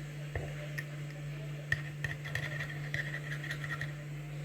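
A spoon scooping powdered chocolate from a pot, with a few light clinks and faint scraping ticks, over a steady low hum.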